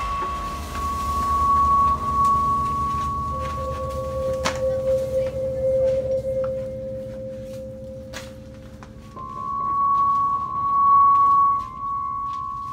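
Background music of long, held, singing-bowl-like tones: a high note and a note an octave below take turns, each lasting several seconds, over a low rumble.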